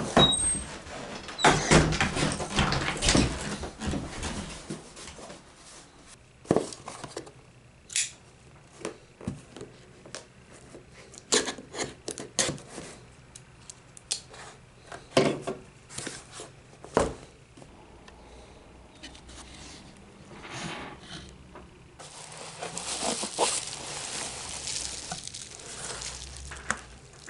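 Irregular small clicks, taps and knocks of objects being handled on a hard surface, with a stretch of rustling or scraping noise near the end.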